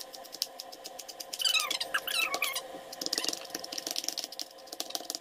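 Rapid knife clicks on a cutting board, as coriander is chopped. Between about one and a half and two and a half seconds in come several high squeaky chirps that slide up and down.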